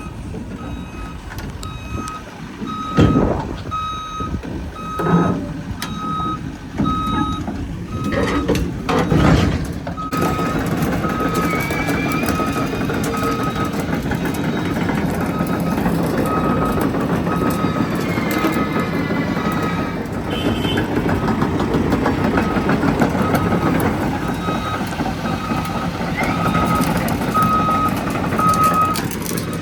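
Heavy-equipment backup alarm beeping steadily, about one and a half beeps a second, over a running machine engine that grows louder and steadier about ten seconds in. A few loud knocks come in the first ten seconds.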